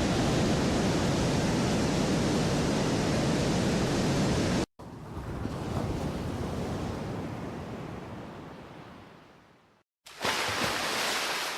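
Water sound-effect samples played one after another. First a dense, steady roar of a big waterfall, the Niagara Falls recording, which stops abruptly about four and a half seconds in. After a short gap comes a wave that swells and slowly dies away, and near the end a third, brighter water sample starts and fades.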